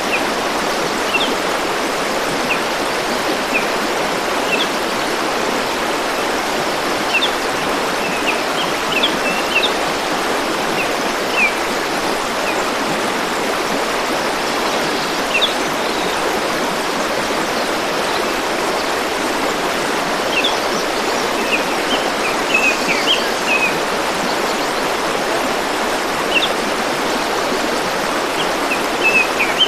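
Stream water running steadily, with short, high bird chirps in scattered bunches over it.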